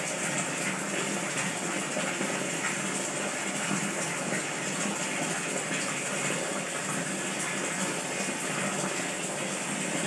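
Water falling and splashing steadily, an even rushing sound with no breaks.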